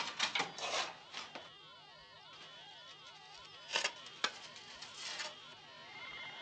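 Shovels scraping and chopping into packed earth with several quick strokes, then more strokes a little past halfway. Under and between them runs an electronic sci-fi sound effect of many crisscrossing tones that rise and fall in arcs. A steady high tone comes in near the end.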